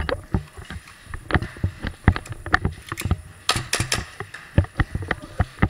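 Irregular sharp clicks and knocks, several a second, from an airsoft player on the move: footsteps on concrete and the rattle of carried gear. A cluster of sharper snaps comes about three and a half seconds in.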